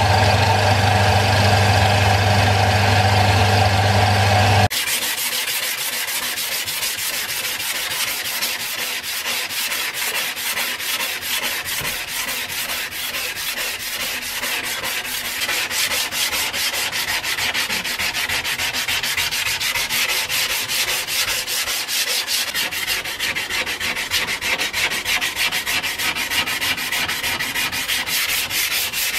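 A bench belt sander's motor runs with a steady hum for the first few seconds, then stops abruptly. After that, a sanding block is rubbed quickly back and forth along a steel cleaver blade by hand, a continuous scratchy rasp.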